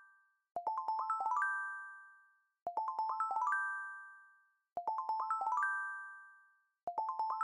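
Channel intro jingle: a quick rising run of bell-like chime notes that rings out and fades, repeated four times about every two seconds.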